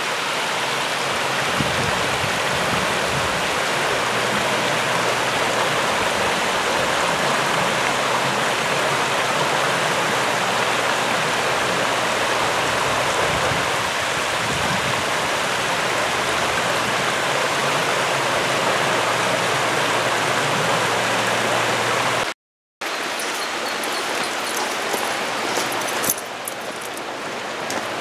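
Shallow creek water rippling steadily over rocks and stones. About two-thirds of the way through, the sound cuts out for a moment and comes back fainter, with a few sharp clicks near the end.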